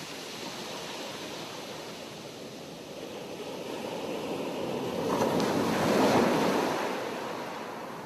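Sea waves: a steady wash of surf that swells into a louder breaking wave about three quarters of the way through, then recedes.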